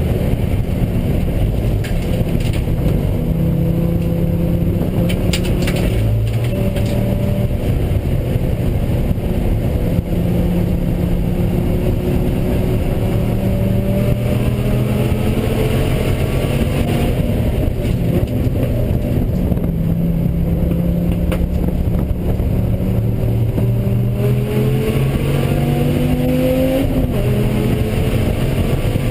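Dodge Viper ACR's V10 engine under hard track driving, its revs climbing and falling as it accelerates, shifts and lifts, with a steep climb in revs near the end.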